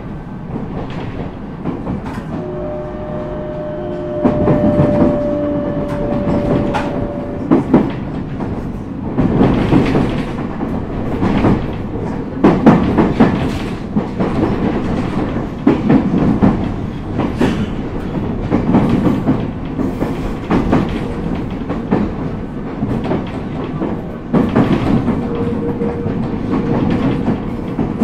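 Running noise of a JR East E127 series electric train, heard inside the car low by the door: wheels knocking irregularly over rail joints and points under a steady rumble. A steady whine sounds for a few seconds early in, and a fainter one near the end.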